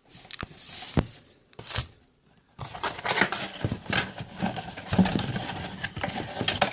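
Football card packs and their plastic wrappers being handled: irregular crinkling and rustling with scattered clicks and a sharp knock about a second in, a brief lull, then denser crinkling.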